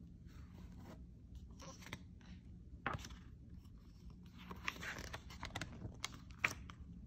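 Hardcover picture book being opened and its pages turned by hand: soft paper rustles and scrapes, with a short knock about three seconds in and a run of small page-handling clicks near the end.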